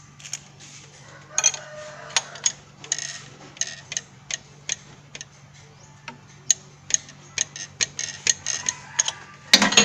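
Metal wrench clicking and tapping on a bolt at the timing-belt pulley of a Toyota Vigo engine as it is worked by hand: irregular sharp ticks, several a second at times, with a louder clatter just before the end.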